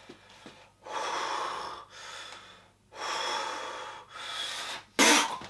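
A man taking two slow, deep breaths, each a long loud rush of air followed by a softer one. Near the end, a sudden loud rush of noise.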